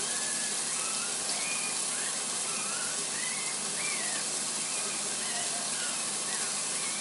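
Ground turkey patty sizzling steadily in a hot nonstick skillet. Faint, short high whimpers from puppies are heard several times over the sizzle.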